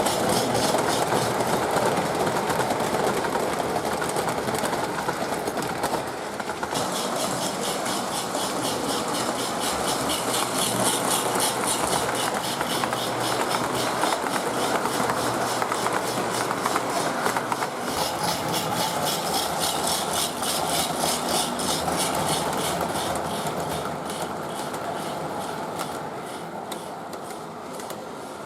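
Lionel MPC-era Pennsylvania 2-4-2 O gauge steam locomotive running with its train on three-rail track: wheels rolling and motor running under the fast, even chuffing hiss of its mechanical sound-of-steam unit, the 'rock tumbler'. The sound fades over the last few seconds.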